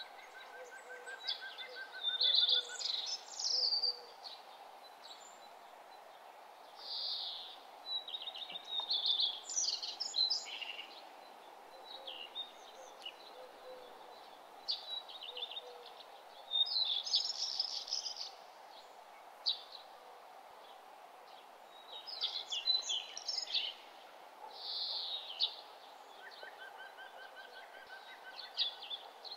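Small birds chirping and trilling in short repeated phrases over a faint steady background hiss.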